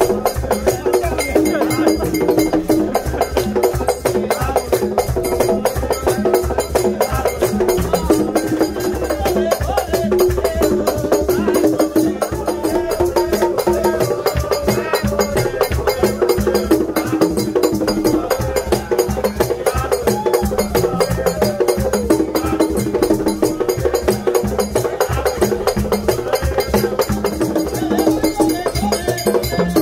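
Live drumming on hand drums held between the players' knees, beaten in a dense, steady rhythm with a sharp wooden clicking beat over it, and voices singing along.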